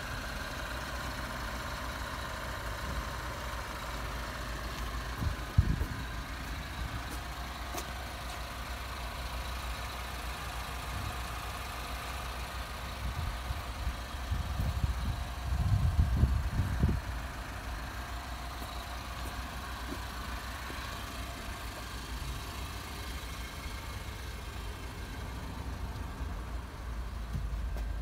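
Toyota C-HR engine idling steadily, with brief louder low bumps on the microphone about five seconds in and again around the middle.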